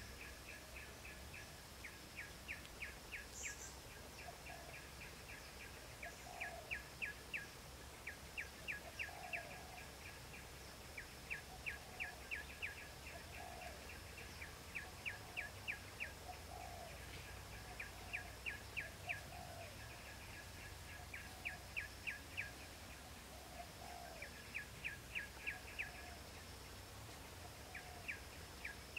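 A bird calling in repeated quick runs of high chirps, about five notes a second and four to eight notes a run, with short pauses between the runs. A faint steady high insect hiss and scattered fainter lower calls lie behind it.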